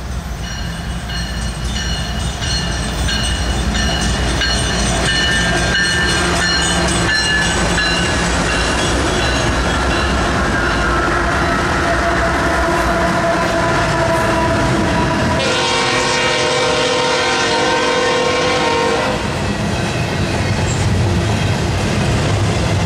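A BNSF stack train passing close by. Its four diesel locomotives rumble louder as they come up and go by while the horn sounds in tones that slowly fall. After the locomotives, the double-stacked container cars roll past with a clickety-clack of wheels on the rail joints.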